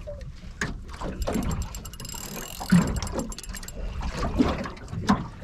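Spinning fishing reel under heavy load from a large hooked fish, giving a run of fast mechanical clicking that is densest in the middle, with a couple of knocks. A steady low rumble of wind and water runs underneath.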